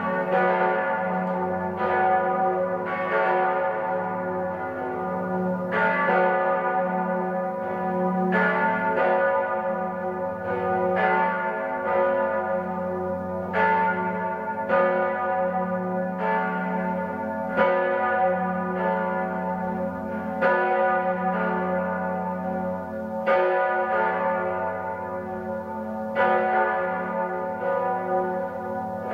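Eight church bells tuned F♯, A, C♯, E, F♯, G♯, A, B, from the deepest up, ringing together in a full peal. Their strikes overlap irregularly, several each second, over a steady deep hum from the lowest bell.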